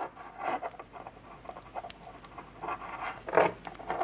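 Light clicks and rubbing from fingers handling the small brass-and-plastic heating element of a Dellorto automatic choke, with several short breaths close to the microphone. The loudest breath comes about three and a half seconds in.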